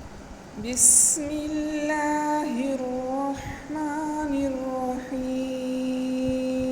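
A woman's voice singing a short melody with gliding notes, with a brief hiss about a second in, then settling about five seconds in on one long held note.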